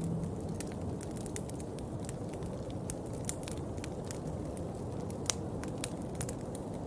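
Steady rain falling, a dense low patter with many separate drops ticking sharply on a hard surface.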